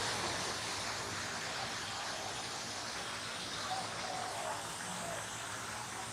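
Steady rushing of running or falling water.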